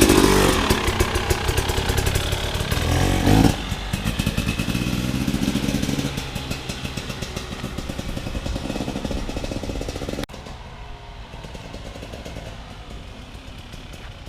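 A KTM 300 XC-W TPI's single-cylinder two-stroke engine running under throttle as the dirt bike is ridden. It is loudest in the first few seconds, drops off sharply about three and a half seconds in, and drops again suddenly about ten seconds in, leaving a fainter engine sound.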